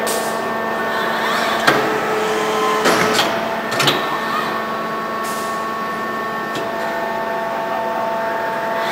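Kawasaki robotic welding cell machinery running, with several steady whining tones that shift in pitch every couple of seconds as the motion changes. A sharp click comes a little under two seconds in, and a few knocks follow about three to four seconds in.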